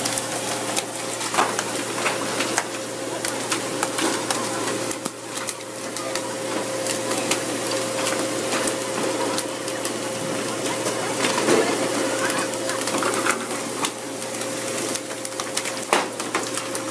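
Steady hiss of water spraying and splashing on the sea beside a pole-and-line tuna boat, over a steady mechanical hum, with scattered sharp knocks, the loudest near the end.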